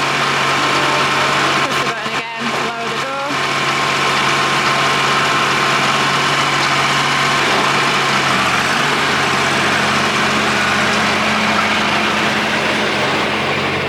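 Tractor engine running steadily while driving a Siromer P10 round baler, with a constant mechanical clatter over the engine note.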